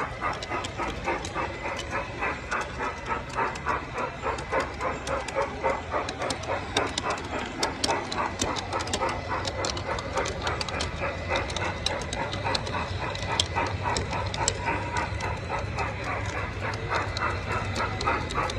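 Garden-scale model steam train running, the locomotive chuffing in an even rhythm of about two to three beats a second, with the cars' wheels clicking over the rail joints.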